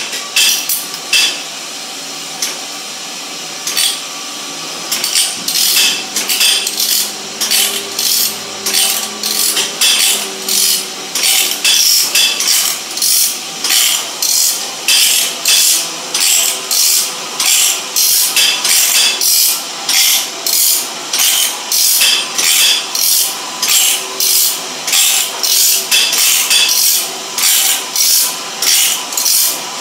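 Saw-sharpening grinder working along a band saw blade: its grinding wheel rasps on each tooth in turn, a short stroke repeated about one and a half times a second over the steady hum of the machine. The strokes are few and uneven at first and settle into a regular rhythm about five seconds in.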